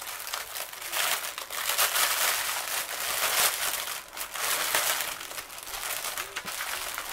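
Clear plastic bag packed with small bags of diamond-painting drills crinkling irregularly as it is handled and turned over by hand.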